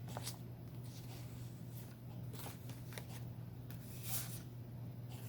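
A deck of cards being shuffled and handled: scattered soft card flicks and taps over a steady low hum.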